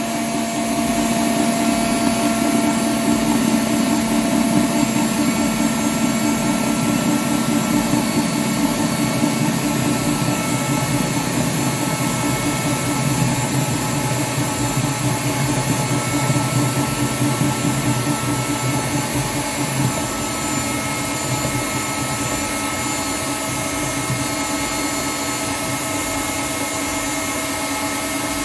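Stand mixer running at high speed, its balloon whisk whipping egg whites into Italian meringue as hot sugar syrup goes in. It makes a steady motor whir, with a deeper hum swelling in the middle and easing off again.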